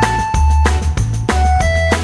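Background music with a steady drum beat, a heavy bass line and a melody of held notes.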